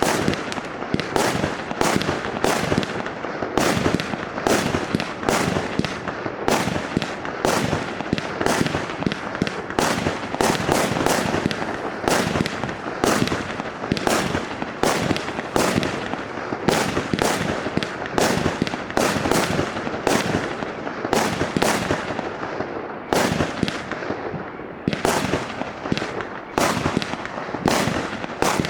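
A 100-shot, 0.8-inch compound fireworks cake firing continuously, its shots coming in quick succession at about two to three a second, with the noise of the bursts filling the gaps between them.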